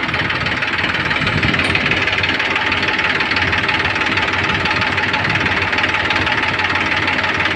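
Swaraj 735 FE tractor's three-cylinder diesel engine running steadily.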